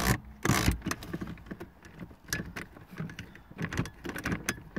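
Irregular small clicks and rattles of plastic parts and wiring being handled, with a couple of sharper knocks about half a second in.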